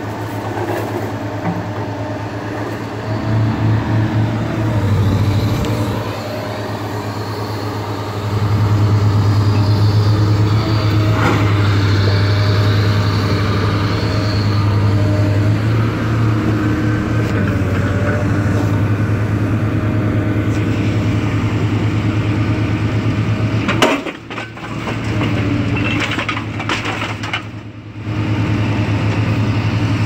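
Large engine running steadily, a strong low hum that gets louder about eight seconds in, with a faint whine that wavers in pitch above it; the sound drops out briefly twice near the end.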